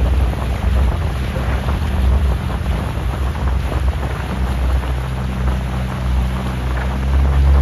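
Outboard motor of a coach launch running steadily, a low hum that grows a little louder near the end, with wind buffeting the microphone and water rushing past the hull.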